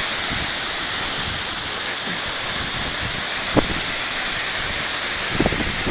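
Waterfall's falling water making a steady, even rush. There is a sharp tap about three and a half seconds in and a few small knocks near the end.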